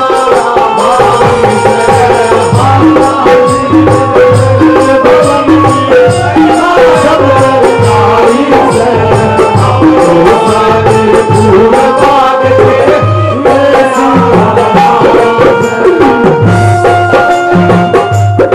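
Instrumental interlude of a Haryanvi folk bhajan: a harmonium plays a held, gliding melody over a steady drum beat of about two strokes a second.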